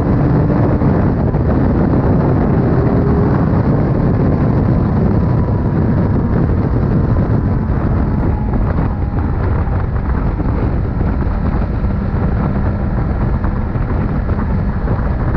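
Suzuki GSX-R750 K9's inline-four engine running steadily at highway speed under heavy wind rush on the microphone.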